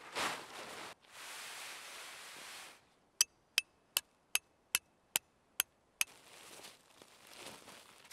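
A metal tent peg is hammered in with the back of a hatchet: eight sharp, ringing metallic strikes, about two and a half per second, starting about three seconds in. Before them a plastic groundsheet rustles as it is spread out, and softer rustling follows.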